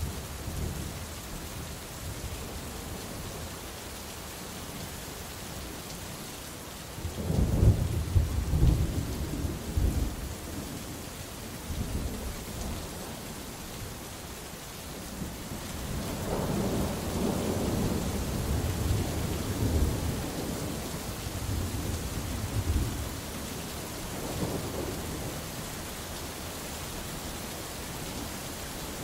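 Steady rain falling through a thunderstorm, with thunder rumbling. A sharp, loud clap and rumble comes about a quarter of the way in. A longer rolling rumble runs through much of the second half, with a smaller one after it.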